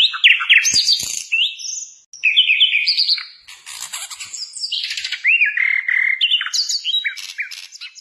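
Common nightingale singing: a fast, varied song of rising and falling whistled notes and quick repeated phrases, with a short break about two seconds in.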